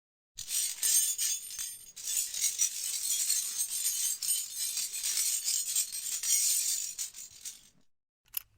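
A bunch of keys being shaken and jangling: a continuous bright metallic jingle for about seven seconds, with a brief break about two seconds in, then a single short clink near the end.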